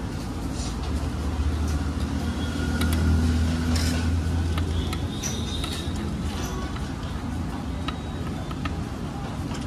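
Street background noise: a steady low traffic hum that swells about two to four seconds in, with a few short clicks scattered through it.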